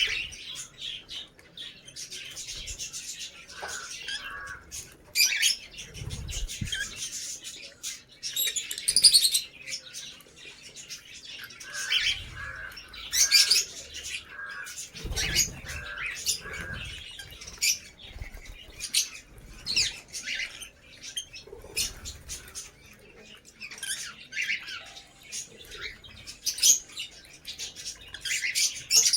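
Lovebirds chirping and squawking: many short, high calls overlapping throughout, with a couple of low thuds.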